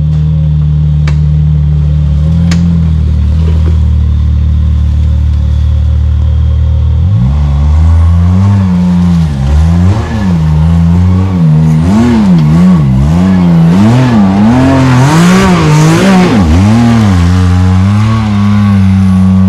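Side-by-side UTV engine idling steadily, then from about seven seconds in revved up and down again and again with short throttle blips, the way a machine is worked while crawling a rock obstacle. A rush of noise rides over the revving around fifteen seconds in, and the engine settles back to a steady run near the end.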